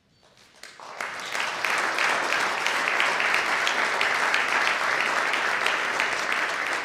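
Audience applauding, a dense clatter of many hands that swells in over the first second and holds steady.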